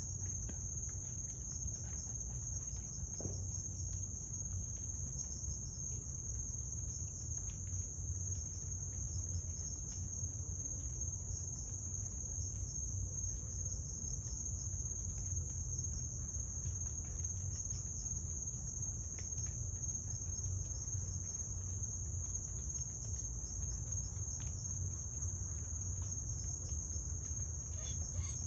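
A chorus of night crickets trilling in one steady, continuous high-pitched drone, over a low steady rumble.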